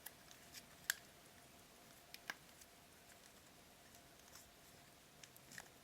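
Near silence broken by a few faint clicks and light handling sounds from a watch strap being buckled around a winder cushion.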